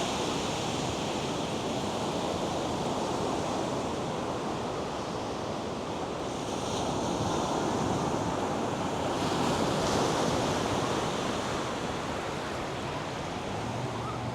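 North Sea surf washing onto a sandy beach, a steady rush of breaking waves that swells a little about two-thirds of the way through, with some wind.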